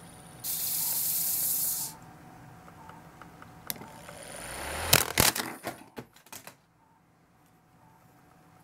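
Small DC hobby motor spinning a CD that is not glued to its crown, the whir swelling as it speeds up; about five seconds in the CD comes off with several sharp knocks and a clatter that dies away within about a second and a half. A loud hiss sounds briefly near the start.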